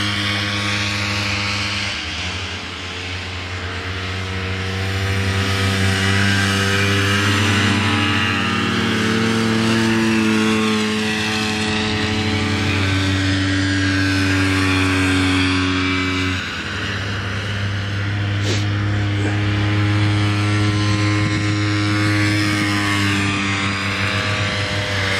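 Several vintage two-stroke snowmobile engines running at race speed, their pitches rising and falling as the sleds circle and pass. A single sharp click past the middle.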